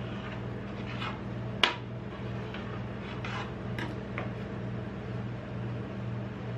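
Knife blade scoring a frozen ice cream sheet on a metal cold plate: short scraping strokes and sharp clicks where the blade meets the metal pan, the loudest click about one and a half seconds in. A steady low machine hum, the cold plate's refrigeration, runs underneath.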